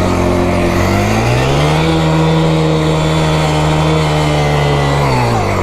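FRP Sahara 40 mini quad's 40cc four-stroke engine revving up about a second in, holding steady at high revs for a few seconds, then dropping back near the end.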